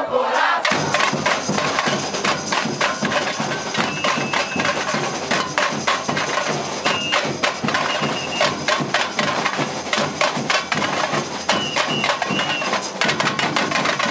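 University bateria, a Brazilian samba drum corps, playing a fast, dense percussion rhythm that comes in about half a second in and runs on steadily. A few short high tones cut through now and then.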